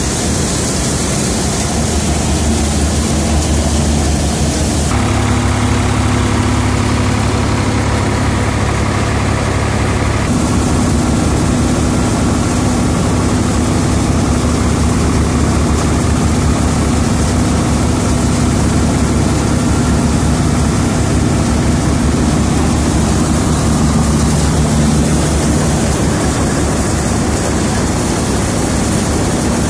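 Threshing machine running steadily at work, a constant loud mechanical drone with a steady hum. Its tone shifts a little about five and ten seconds in.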